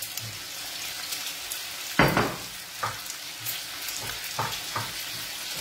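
Guanciale and garlic sizzling in oil in a frying pan, a steady hiss. Over it come a few scattered knife chops on a wooden cutting board as greens are cut; the loudest knock comes about two seconds in.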